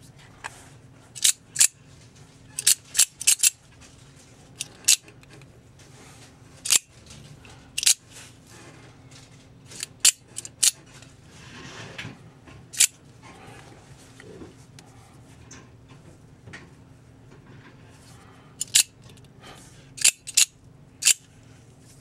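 Metal-bodied Sicilian double-action out-the-front knife, its blade repeatedly firing out and snapping back in on the front sliding button: sharp metallic clicks, often in quick pairs or clusters, with pauses of a second or more between.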